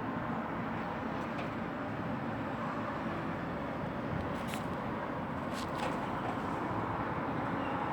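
Steady low outdoor rumble, an even drone with no clear rhythm, with a few faint clicks in the middle.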